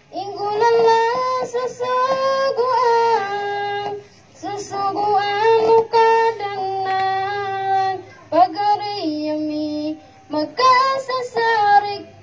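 A boy singing solo into a handheld microphone, unaccompanied, in phrases of long held, wavering notes broken by short pauses.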